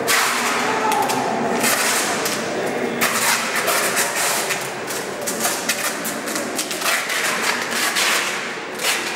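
Dense, noisy clatter of many knocks and scrapes from hands working on a wooden tripod frame.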